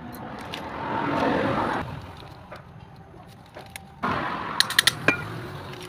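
Motorcycle engine running, its sound swelling about a second in, then a sudden louder stretch with several sharp clicks near the end.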